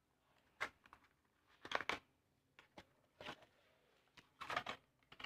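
Cardboard phone-box insert and its plastic sleeve being opened and handled: short rustles and scrapes, about four brief spells of them.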